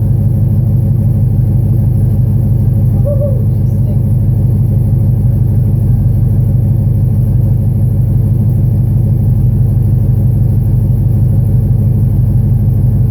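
Chevrolet Silverado SS's 6.0 L LQ9 V8, on a factory tune, breathing through 1 7/8" longtube headers, no catalytic converters and a 14" Borla Pro muffler, idling steadily with a deep, even exhaust note.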